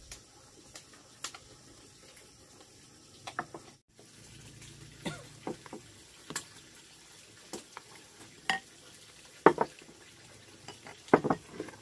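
Tableware clicking during a meal: chopsticks and a plastic rice paddle tapping and scraping against ceramic rice bowls in scattered, irregular clicks, with a couple of sharper knocks near the end.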